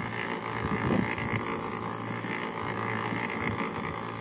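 Concrete mixer running steadily with a constant hum, its drum turning over a batch of concrete.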